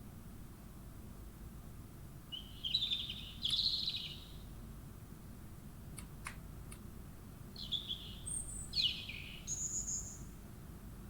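A bird singing in two bursts of high, quick chirping phrases, the first about two and a half seconds in and the second about seven and a half seconds in, over a steady low background hiss.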